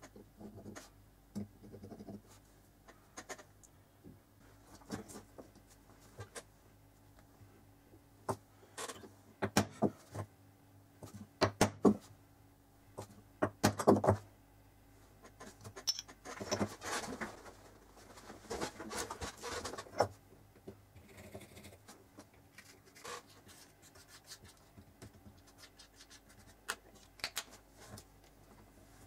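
Small metal tools and plates being handled on a workbench: scattered clicks and taps as a caliper and parts are set down and picked up, with a run of louder knocks near the middle. A few seconds of scratching follow, as of scribing marks on a painted metal plate.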